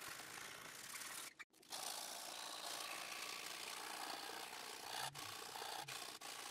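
Faint rubbing and scraping of hand-finishing a steel knife blade: file strokes along the blade, then abrasive paper rubbed on it after a short break about a second and a half in.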